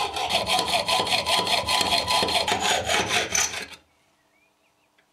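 Hand hacksaw cutting through a small turned metal bolt blank clamped in a bench vise, sawing off the tip of the screw with quick, even back-and-forth strokes that stop about three and a half seconds in.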